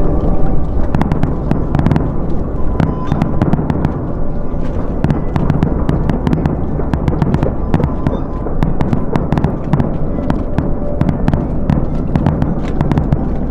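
Fireworks going off: dense, rapid sharp crackles over a steady low rumble of bursts.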